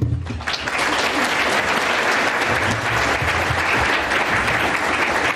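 A large audience applauding, the clapping building up within the first second and then holding steady.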